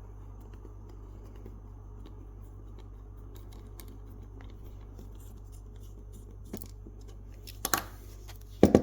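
A small screwdriver turning a screw into a sonic screwdriver prop's metal handle, forcing the inner grub screw out: faint scratchy clicks of the tool and screw. A single click comes late on, then two sharp clacks near the end, the last one the loudest.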